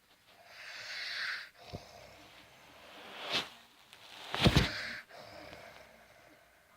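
Snoring in sleep: a breathy breath about a second in, then a short snort and, around four and a half seconds, a loud rattling snort.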